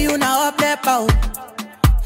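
Afrobeats song playing, with a deep bass drum hit at the start and again near the end under a sliding melodic line.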